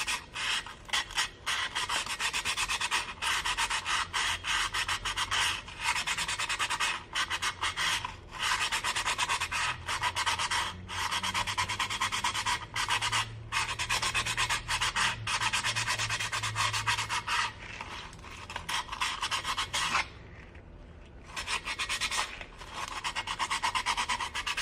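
Sandpaper being rubbed by hand against the chipped rim of a drinking glass in rapid back-and-forth strokes, a dry scratchy rasp that smooths the chip's sharp edge. The strokes come in runs with short breaks and stop for about a second around 20 seconds in.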